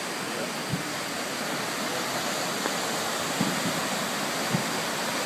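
Steady rushing noise with three short, dull thumps of distant fireworks: one just under a second in, one past three seconds and one near the end.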